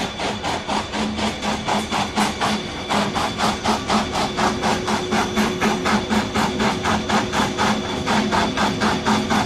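Tissue paper log saw machine running, its blade chopping through the paper logs in a fast, even rhythm of about four cuts a second over a steady machine hum. The cuts grow a little louder about three seconds in.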